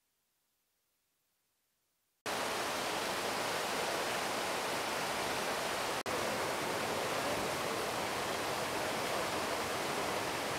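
Near silence, then about two seconds in a steady rush of a muddy river in flood surging past a debris-clogged bridge, with a very brief dropout about six seconds in.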